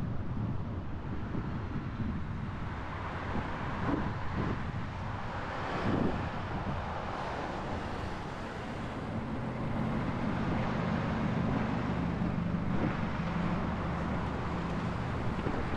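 Traffic and road noise from a car driving along a city street, with wind on the microphone. A couple of brief swells of passing-vehicle noise come early, and from about halfway through a steady low engine hum sets in as traffic slows.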